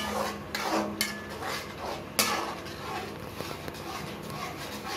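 Spatula stirring and scraping in an aluminium kadai, with three sharp clacks of the spatula against the pan in the first half.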